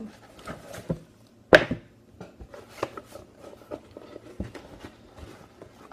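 Cardboard box being handled as its contents are taken out: scattered taps, knocks and rustles of cardboard and packed items, with one sharper knock about a second and a half in.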